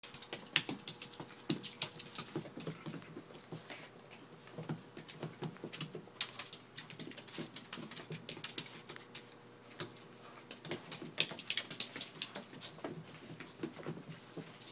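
Italian greyhounds, a saluki and a chihuahua scuffling in play, their claws clicking and pattering irregularly on a hard floor and blanket.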